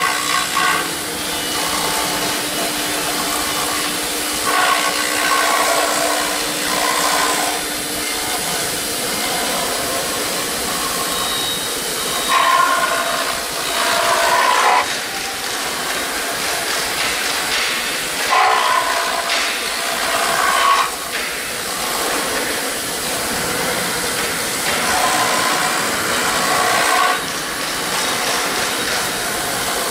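4-axis CNC foam router's high-speed spindle and cutter milling EPS foam: a steady, loud hiss with louder whirring passages that come back every few seconds.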